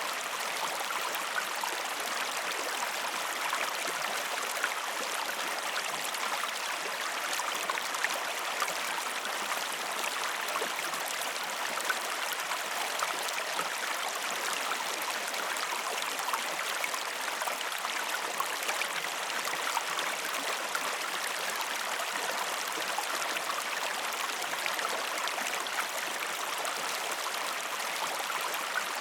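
Steady rush of running water, with many small splashes and drips throughout.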